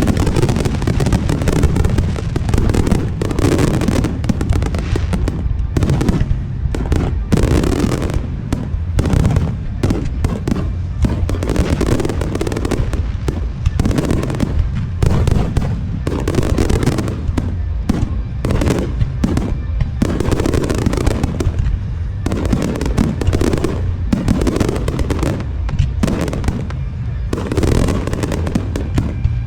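Aerial fireworks exploding non-stop: a dense barrage of booming shell bursts overlapping one another with hardly a pause.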